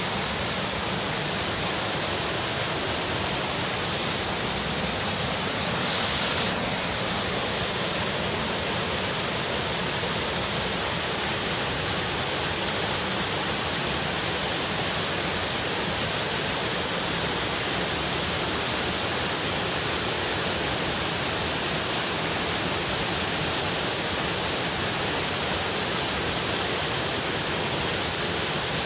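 Steady rush of a flowing river (wadi), with a brief high sound about six seconds in.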